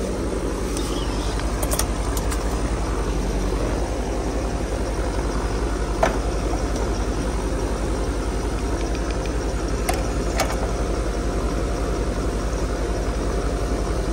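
Air-conditioning system running with a steady machine noise and low hum, with a few sharp clicks and taps, the loudest about six seconds in.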